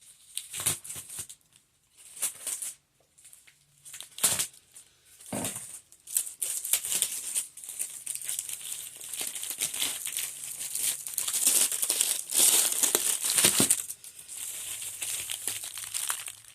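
Crinkly wrapping on packs of firecrackers being handled and opened: short rustles at first, then a long stretch of continuous crinkling and tearing that eases off near the end.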